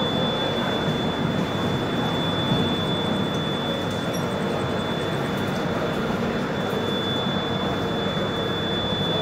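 Steady running noise of a Rajdhani Express passenger train heard from inside the coach, an even rumble with a thin, high, steady whine over it.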